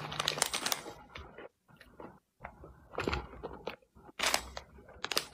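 A person biting and chewing crunchy chips, the crunches coming in several clusters, loudest about three and four seconds in.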